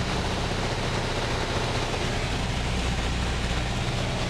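Cabin noise of a Piper PA-28 light aircraft during landing: the piston engine's steady low drone under a broad hiss of airflow and rolling, heard from inside the cockpit.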